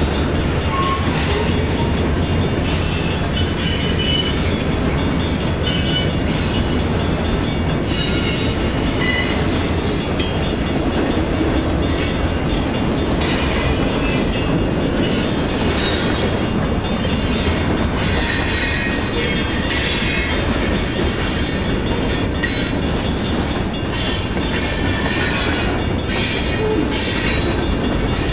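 Freight train boxcars and covered hopper cars rolling steadily past: a continuous rumble of steel wheels on rail with frequent clicks over the rail joints and on-and-off high-pitched wheel squeals.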